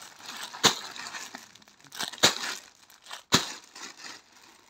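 Clear plastic saree packets crinkling and rustling as they are handled and dropped onto a pile, with three sharp crackly slaps, about a second apart.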